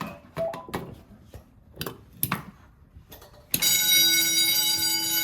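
A few sharp clicks and knocks, then about three and a half seconds in a fire alarm bell starts ringing loudly and keeps on. The bell is set off by a pull station being tested.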